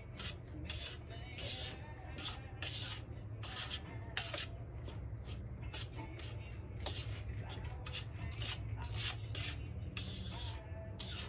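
A utensil stirring and scraping a dry breading mix of flour, breadcrumbs and seasonings on a plate, in short scraping strokes about twice a second, over a low steady hum.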